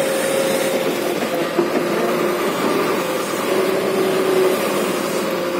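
Crawler excavator's diesel engine running steadily as the machine works, with a faint whine that drops in pitch about a second and a half in.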